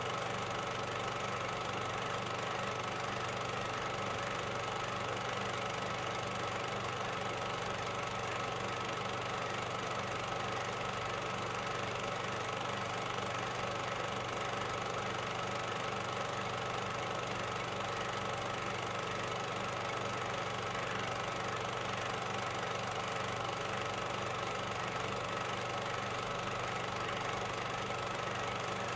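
Steady mechanical hum over hiss, with a fixed high whine and a low drone, unchanging throughout.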